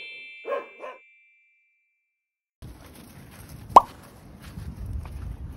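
Two short dog barks as the tail of an intro sound effect, then silence, then low wind rumble on the microphone with a single quick rising pop a little past the middle.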